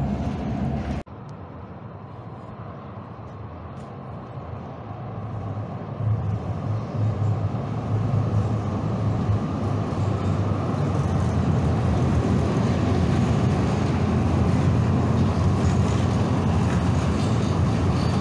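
Light-rail train running, heard from inside the car: the sound drops off abruptly about a second in, then the rumble of the car grows steadily louder over several seconds as the train gathers speed, and holds steady.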